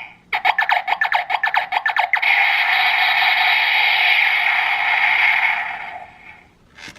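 Electronic sound effects from a DX GabuGabuRevolver toy morpher's speaker: a rapid run of clicking blips for about two seconds, then a sustained buzzing electronic tone that fades out about six seconds in.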